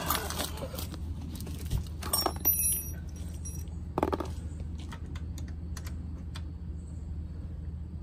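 Small metal hand tools clinking and rattling as they are handled at the motorcycle, a cluster of clicks about two seconds in and a sharp clink at four seconds, then a few faint ticks. A steady low hum runs underneath.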